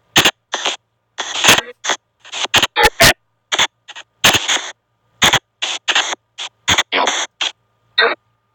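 Spirit box app on a phone playing a rapid, irregular string of short noisy bursts, about two a second, each chopped off abruptly with dead silence between them.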